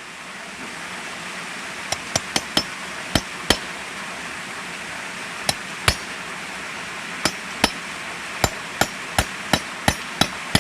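Hammer blows on a metal rod driven into a bearing bore packed with wet paper, about seventeen sharp, slightly ringing strikes in uneven groups, starting about two seconds in. This is the paper hydraulic trick for pushing a worn blind bearing out of its seat.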